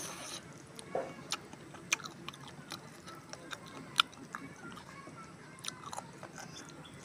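A person biting and chewing a chicken thigh in masala curry sauce, with scattered short sharp mouth clicks and smacks, the loudest about four seconds in.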